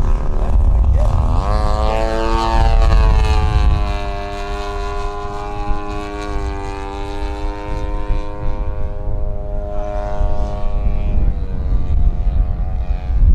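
Engine and propeller of a large radio-controlled scale propeller warbird in flight, a steady engine note that climbs sharply in pitch about a second and a half in, holds, then fades near the end. Wind rumbles on the microphone throughout.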